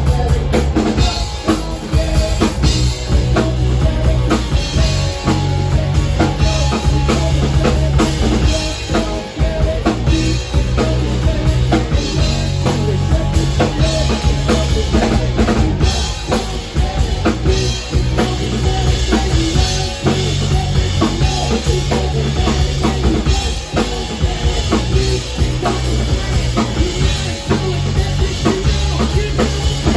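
Live rock band playing loud: a drum kit keeping a steady beat of kick and snare under amplified electric guitar.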